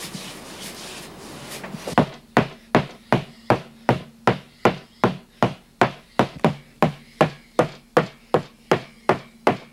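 A mounter's striking brush (uchibake) beating freshly pasted backing paper, starting about two seconds in and keeping a steady rhythm of about three strokes a second. This is mashi-uraichi, the tapping that presses a second backing sheet onto the first. The brush's own weight does the work, so each stroke is a light, even knock.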